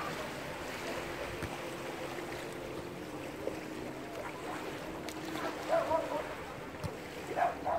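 Beach ambience: a steady wash of calm sea water and wind with a faint steady hum underneath, and faint distant voices briefly about two-thirds of the way through and again near the end.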